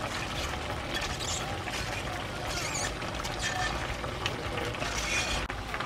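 Metal ladle stirring and scraping through a simmering pan of spicy braised chicken as sliced green onion, onion and chilli are folded in, in short bursts of scraping and clinking over a steady low hum.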